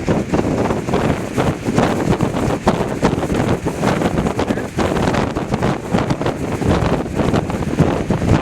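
Gale-force wind buffeting the microphone in loud, irregular gusts.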